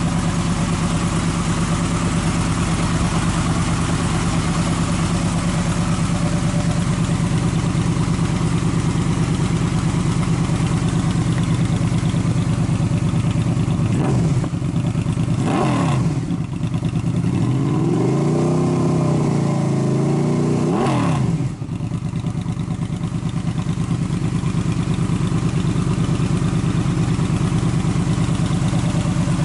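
Honda VFR800's V4 engine, breathing through a Delkevic SS70 exhaust, idling steadily. About halfway through it is revved sharply twice, then blipped in a quick string of rises and falls before it settles back to idle.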